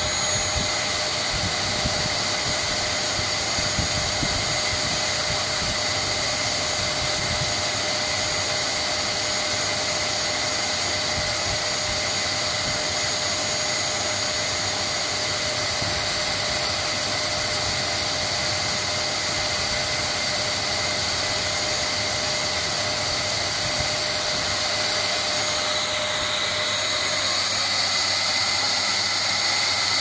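Dyson canister vacuum cleaner running steadily: an even rushing whir of air with a thin high whine on top. Its tone shifts slightly near the end.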